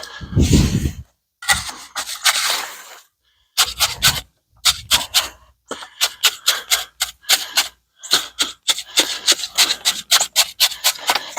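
A hand tool scraping through wet concrete mix. A few longer scrapes come first, then quick repeated short strokes, a few a second.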